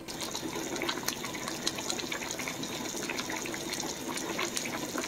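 Nabe hotpot of pork, salmon and napa cabbage at a full boil: steady dense bubbling broth with many small pops.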